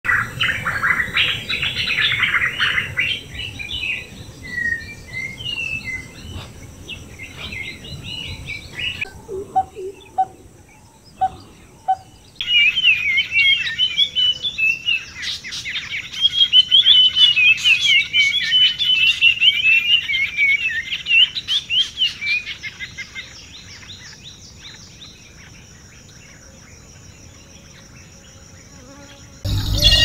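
Wild birds singing and calling in several short stretches over a steady, high insect drone. A dense, fast warbling song fills the middle, from about 12 to 23 seconds, and a sudden low rumble starts just at the end.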